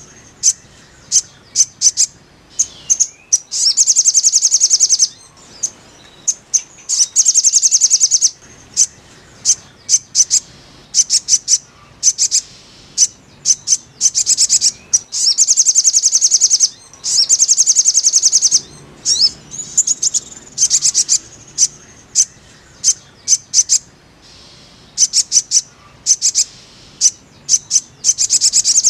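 Sogok ontong (little spiderhunter) calling: high-pitched chattering trills of rapid sharp notes, each about a second long, alternating with single chips and repeated throughout. A therapy call recording of the kind played to caged sogok ontong to get them singing.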